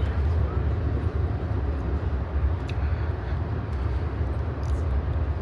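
Steady low rumble and running noise of an Amtrak passenger train in motion, heard from inside the coach, with a few faint clicks.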